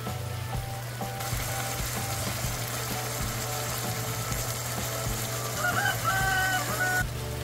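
Chicken livers sizzling as they simmer in sauce in a nonstick pan, over background music; the sizzle starts about a second in and cuts off suddenly near the end. Near the end there is also a brief, loud pitched call.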